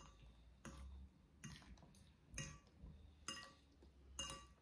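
Faint clinks of forks against plates during a meal, about one a second, with near silence between them.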